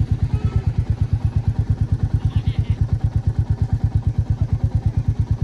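Motorcycle engine running steadily with a slow, even exhaust beat, about eight pulses a second.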